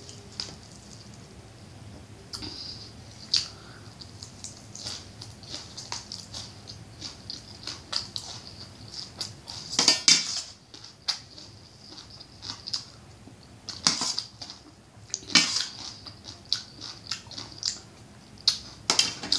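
Close-up eating sounds: a person chewing fried quail and papaya salad with wet mouth clicks and crunches, and a few louder clatters of a spoon against the metal bowl.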